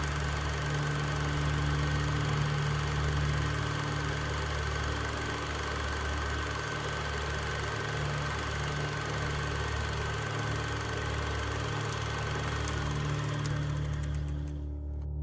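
Steady low hum with a faint high tone over even hiss, unchanging throughout, the hiss cutting off near the end.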